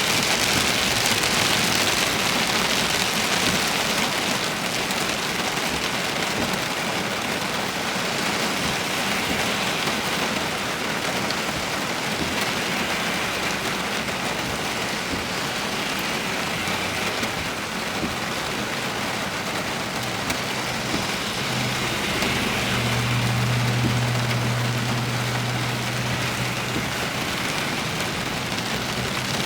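Heavy rain falling steadily, a constant hiss. A low steady hum joins past the middle for several seconds.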